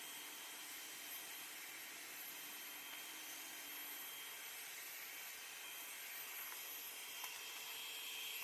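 Hair dryer running steadily, a blowing hiss with a high motor whine, as it heat-shrinks a plastic seal. It cuts off abruptly at the very end.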